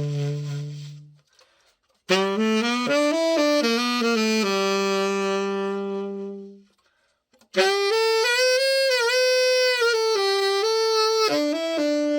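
Yamahiro 110-GS tenor saxophone played solo in short melodic phrases with long held notes and brief silences between, a play test after its disassembly, reassembly and setup.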